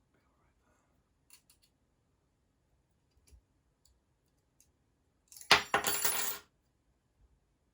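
Small metal construction-set parts, nuts, bolts and plates, clattering and jingling together for about a second a little past halfway, after a few light clicks of parts being handled.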